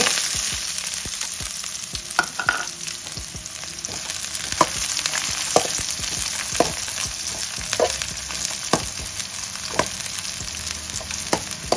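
Chopped onion sizzling in hot coconut oil with mustard seeds and curry leaves, a tempering, with a burst of sizzle as the onion goes in at the start. A steel spoon clinks and scrapes against the metal kadai about once a second as it is stirred.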